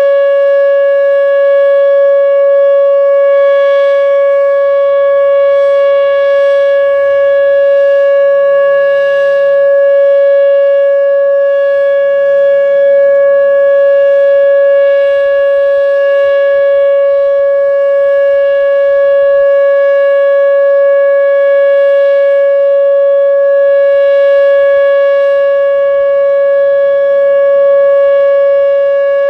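Whelen WPS-2807 electronic outdoor warning siren sounding its steady 560 Hz alert tone, a single loud held note with a stack of overtones and no rise or fall in pitch. This is the 3-minute alert signal used for tornado warnings, sounded here as a test.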